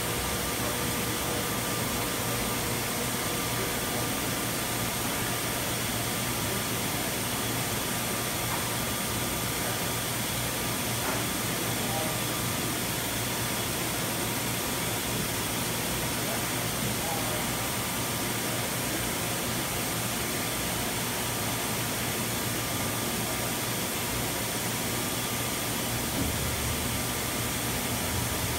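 Steady background noise of a large factory hall: an even hiss with a few faint steady hum tones and no distinct events.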